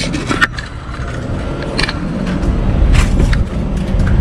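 A wheeled wire laundromat cart rolling across the floor: a steady low rumble with scattered clicks and rattles from the wire basket and frame.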